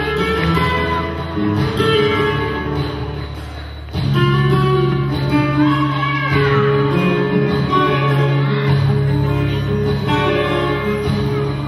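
Flamenco-style music: acoustic guitar with singing, a louder passage starting about four seconds in.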